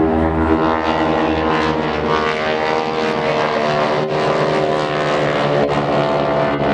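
Several single-engine propeller planes flying overhead in formation, their engines droning together in a steady, many-toned hum. A few brief clicks come in the second half.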